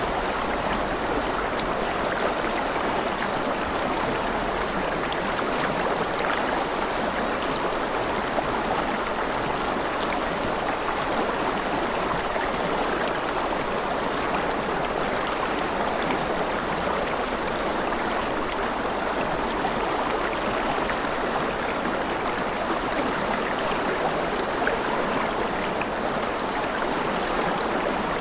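River water rushing over rocks, a steady, even rushing that does not change.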